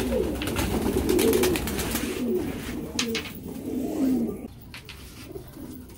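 Domestic pigeons cooing repeatedly, with a few sharp wing claps as birds take off. The cooing dies down about four and a half seconds in.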